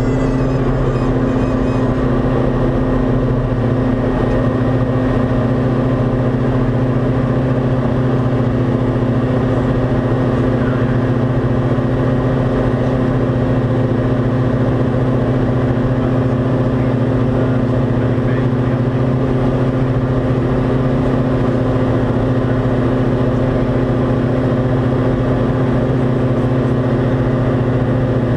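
Diamond DA40 single-engine piston airplane's engine and propeller running at takeoff power, heard from inside the cockpit: a loud, steady drone at one unchanging pitch through the takeoff roll and climb-out of a touch and go.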